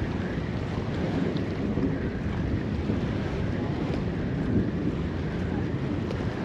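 Wind buffeting the microphone over a steady rush of water and surf.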